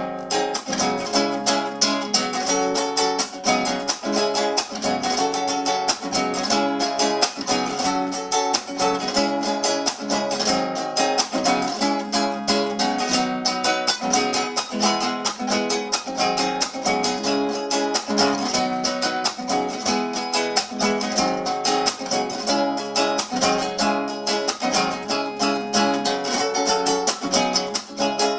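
Acoustic guitar strummed in a fast, steady carnavalito rhythm, an improvised Andean-style dance tune.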